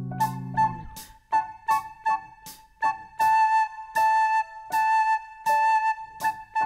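Soprano recorder playing the note A over and over in a slow, simple rhythm of short and held notes, over a light keyboard accompaniment with crisp percussive ticks. A low keyboard chord fades away in the first half second.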